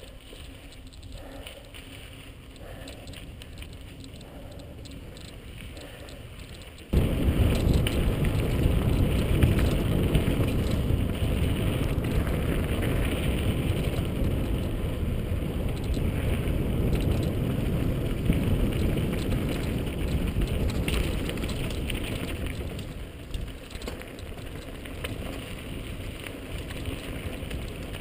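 Mountain bike riding a dirt trail, heard through a helmet-mounted camera: tyres rolling and crunching over dirt and grit. About seven seconds in, a loud low rumble of wind on the microphone suddenly joins the tyre noise, and it eases somewhat near the end.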